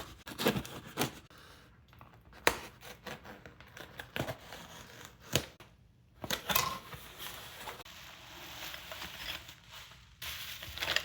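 Cardboard shipping box being opened by hand: packing tape cut and torn, with irregular clicks, scrapes and crinkling of packaging.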